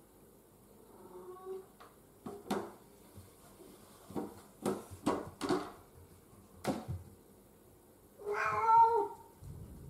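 A domestic cat coming through a plastic cat flap in an interior door. A faint meow comes about a second in, then the flap clacks several times as it swings, and one long, loud meow sounds near the end.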